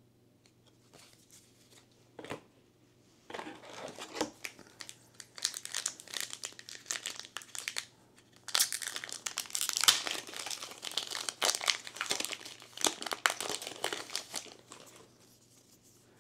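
Plastic trading-card booster pack wrapper being crinkled and torn open by hand: a run of sharp crackling rustles starting about three seconds in, loudest midway, dying away near the end, with a single click shortly before.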